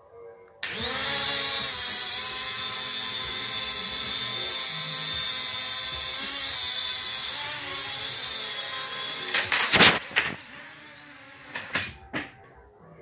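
Small Blizzard quadcopter drone's motors and propellers spinning up and running with a steady high whine. They cut off about nine and a half seconds in with a few sharp knocks.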